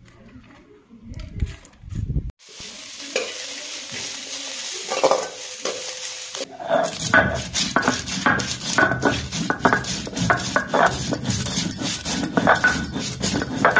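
Sliced onions sizzling in hot oil in a steel kadhai, stirred and scraped with a steel ladle: an even hiss with occasional knocks. About six seconds in it gives way to a louder run of short rough scrapes and squeaky sounds.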